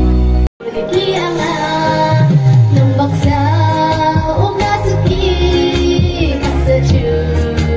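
A young woman singing into a microphone over backing music, amplified through a PA loudspeaker system. The sound cuts out completely for a moment about half a second in.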